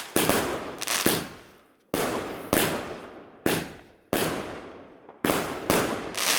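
Fireworks exploding, about nine sharp bangs in quick succession, each followed by a fading, echoing tail.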